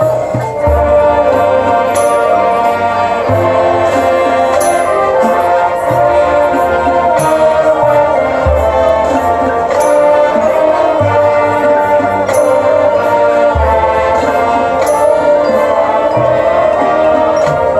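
High school marching band playing its field show: sustained brass and woodwind chords over a low drum hit about every two and a half seconds.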